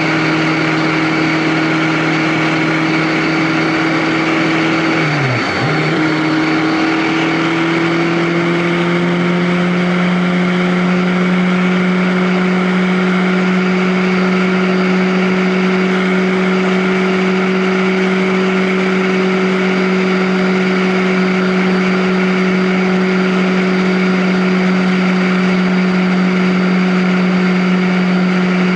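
Motor vehicle engine running at a steady cruise over road and wind hiss. About five seconds in the engine note dips sharply for under a second, then settles slightly higher and holds steady.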